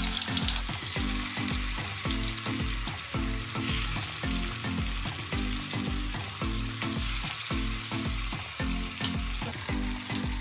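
Marinated fish pieces sizzling in hot oil in a kadai as more pieces are added, over background music with a steady low beat.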